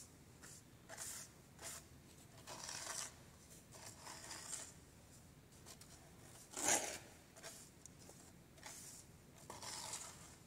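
A hand rubbing and raking Siberian motherwort seeds across a wooden-framed seed-cleaning screen: a series of short, dry scraping swishes, with one louder scrape about two-thirds of the way through. The rubbing sifts the dust out through the screen while the seeds stay on top.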